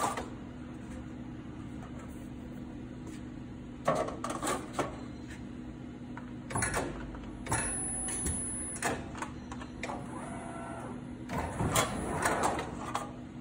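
Cidan combi-beam CNC sheet-metal folder working on a roofing profile: a steady hum from the machine with four short bursts of mechanical clatter as the beam moves and bends the sheet, one of them with a thin high whine.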